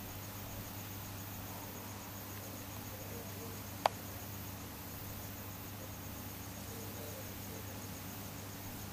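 Night-time background of steady low hum and hiss, with a faint high chirping pulsing at an even rate, typical of crickets. A single sharp click about four seconds in.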